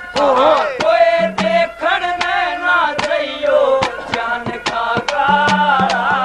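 Male voice singing a Haryanvi folk song (ragni) at full voice, the melody sliding and ornamented, over sharp, evenly repeating hand-drum strokes.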